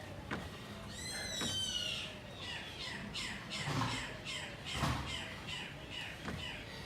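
A bird squawking: one harsh call sliding down in pitch, then a quick run of short falling chirps, about three a second. A few dull thumps sound among them.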